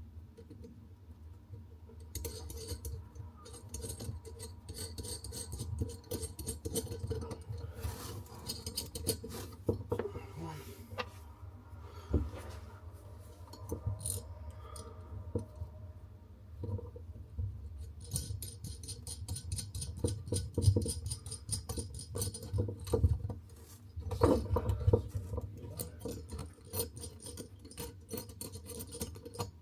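Irregular scraping, rubbing and small clicks of hands and tools working under a bathroom basin, winding a new mixer tap's fixing parts onto its threaded stud.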